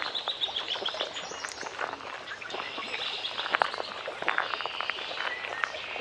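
Birds chirping and singing, with a fast trill of short notes dropping slightly in pitch in the first second and further whistled calls after. Underneath are scattered small clicks and crackles.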